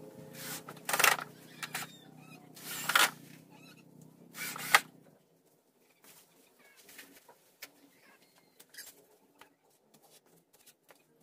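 A handheld power tool run in several short loud bursts over a steady low machine hum, which cuts off about five seconds in. After that only faint clicks and a few short chirps.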